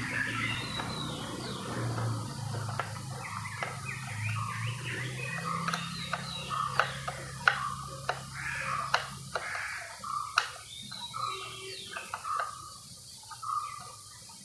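A small screwdriver undoing the screws that hold a radio's circuit board, with scattered sharp clicks of metal on screws and plastic. Birds chirp in the background, and a low hum stops about halfway through.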